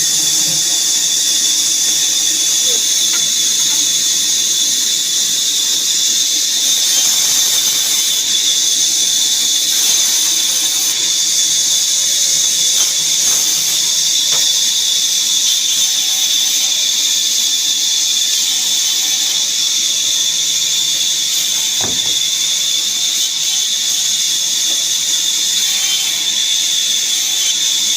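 Woodworking saw machine running with a steady high-pitched whine and hiss.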